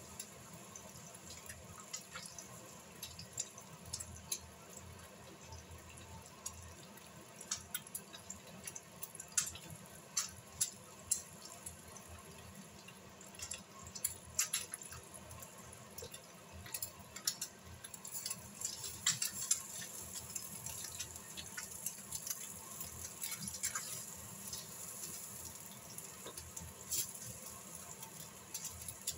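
Eggs frying in a nonstick pan: a steady sizzle with irregular sharp spitting pops, getting denser and louder in the second half.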